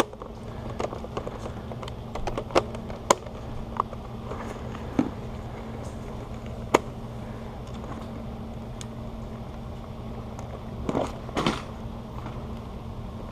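Scattered plastic clicks and knocks from a Panasonic Palmcorder camcorder and its battery being handled and fitted, with a brief rubbing rustle near the end. A steady low hum runs underneath.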